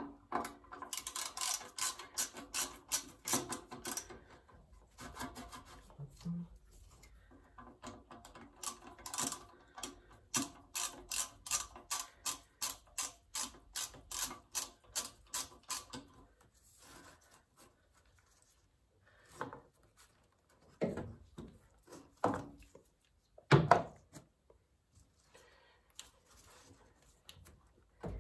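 Ratchet wrench clicking rapidly as bolts are worked, in two long runs with a short pause about four seconds in. Then scattered separate knocks and clatters of tools and parts, the loudest one about three-quarters of the way through.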